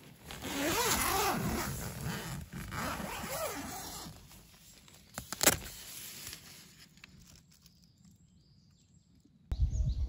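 Tent door zipper being unzipped by hand in two long rasping pulls, followed by a single sharp click a little over halfway through. Near the end a low rumbling noise starts abruptly.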